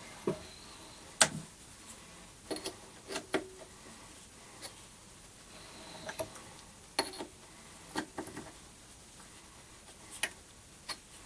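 Irregular sharp metallic clicks and knocks, about a dozen, some ringing briefly, as a metal lathe's four-jaw chuck is rotated by hand. A large twist drill sits in the cast-iron workpiece's bore.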